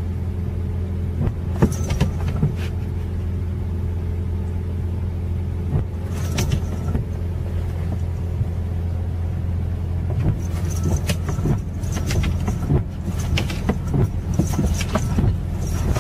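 Car engine idling, heard from inside the cabin as a steady low hum. Scattered light taps and knocks come over it, more often in the last few seconds.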